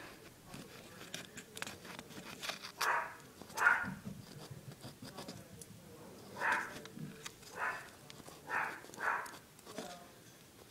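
Short, irregular scratching strokes of scissors digging black powder out of a broken Piccolo Pete firework's cardboard tube, about half a dozen scrapes with small ticks between them.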